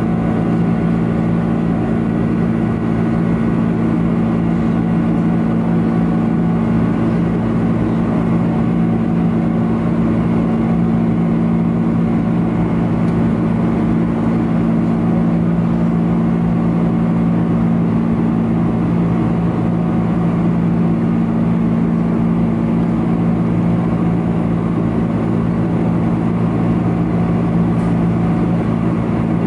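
Boeing 747-400 cabin noise beside the wing: the steady, loud sound of its General Electric CF6-80C2 turbofan engines and rushing air, with a constant low drone underneath.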